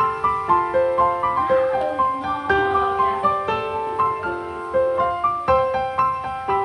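Piano music: a simple, slow melody played note by note, about two notes a second.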